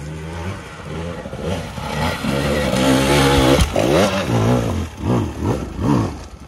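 Dirt bike engine revving in short throttle blips, its pitch rising and falling several times in quick succession in the second half, with a knock about three and a half seconds in.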